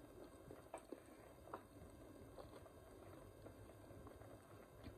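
Near silence: quiet room tone with a few faint, short clicks.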